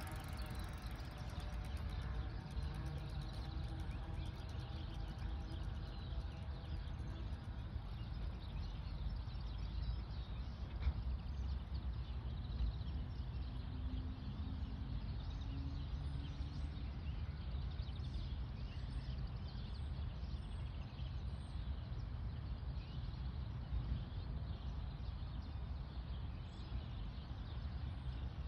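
Open-air ambience: a steady low wind rumble on the phone microphone, with a row of faint high bird chirps about halfway through.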